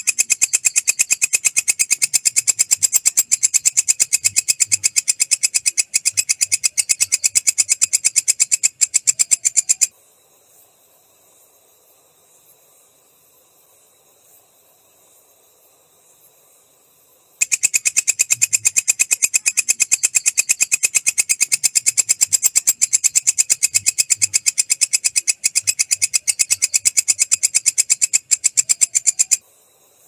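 Walang kecek katydid (green bush cricket) calling: a fast, steady train of shrill dry ticks. It calls for about ten seconds, falls silent for about seven, then calls again for about twelve seconds.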